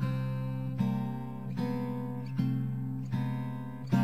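Background music: strummed acoustic guitar, with a new chord struck a little under every second.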